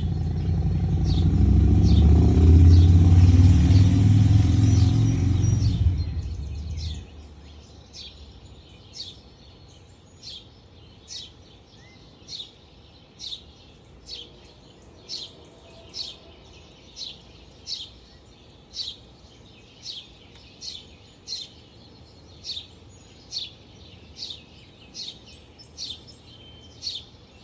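A vehicle passes by with a low rumble that swells, peaks a few seconds in and fades away by about seven seconds. After it, a bird repeats a short, high, falling chirp about once a second.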